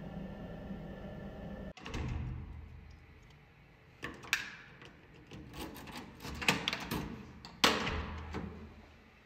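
A steady hum cuts off abruptly about two seconds in. Then a metal lever door handle and its latch are worked, giving a run of clicks and clunks, the loudest knocks about six and a half and seven and a half seconds in.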